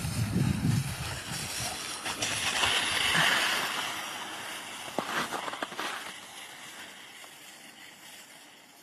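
A bulldog's board sliding over snow, a hissing scrape that swells about three seconds in and then fades steadily as the board glides away down the slope.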